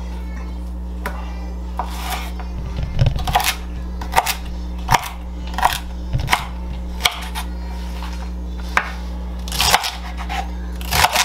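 Chef's knife slicing celery stalks on a wooden cutting board: irregular sharp knocks as the blade strikes the board, some coming in quick clusters, over a steady low hum.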